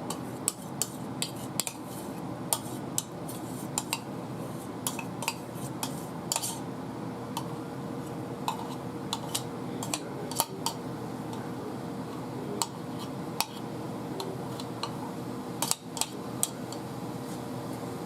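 A utensil clinking and tapping against a saucepan and dishes in irregular light clicks, over a steady low hum.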